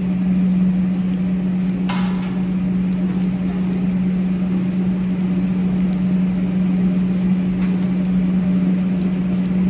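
Oil sizzling in a steel pot as soya pieces fry, over a loud steady low hum. There is a faint click about two seconds in.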